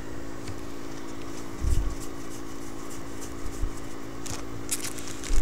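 Stack of paper-stock trading cards being handled and slid through the hands: a soft bump early on and quick papery flicks and rustles near the end, over a steady low hum.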